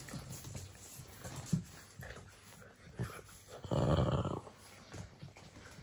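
Six-week-old French bulldog puppies play-fighting: short dog sounds, scuffling and small clicks of paws and mouths. One louder noise lasts under a second about four seconds in.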